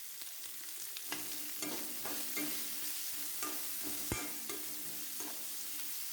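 Chopped onions frying in a kadai of hot tempering oil, stirred with a spatula: a steady light sizzle with spatula taps against the pan about twice a second, and one louder knock about four seconds in.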